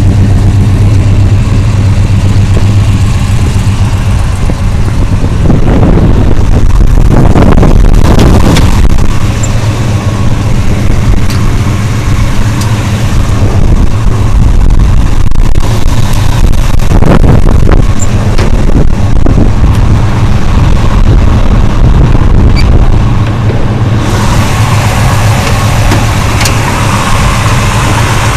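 Chevelle SS 454 big-block V8 idling with a steady low rumble, with a few brief revs in the middle.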